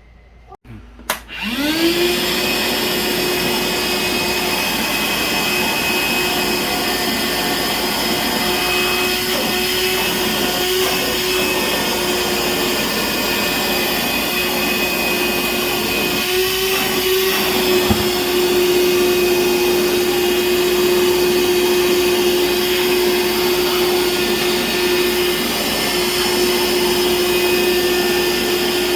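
DeWalt DCV580 20V cordless wet/dry vacuum switched on with a click about a second in. Its motor spins up in a quick rising whine, then runs steadily.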